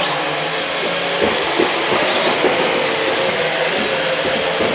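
Toy quadcopter's four small electric motors and propellers running in a steady high whine with a whoosh of air. The pitch dips briefly about two seconds in and climbs back.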